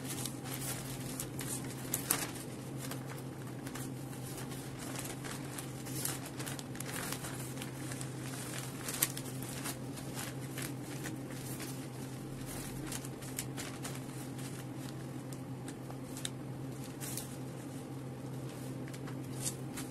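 Sheets of wrapping paper rustling and crinkling in irregular bursts as they are handled and folded around a bouquet, with a sharper crackle about two seconds in and another about nine seconds in. A steady low hum runs underneath.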